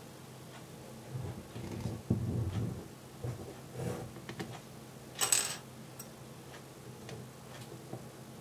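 Handling noise at a workbench: soft knocks and small clicks as a cordless drill and a small plastic LEGO pneumatic switch body are picked up and positioned. One short, sharper burst of noise about five seconds in is the loudest sound.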